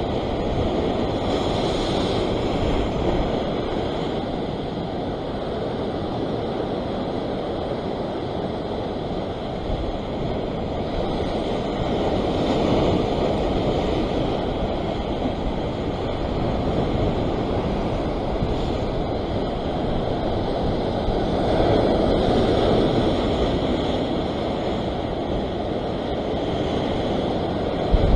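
Ocean surf breaking and washing over a rock ledge: a steady rush of white water that swells and eases slowly as sets come in.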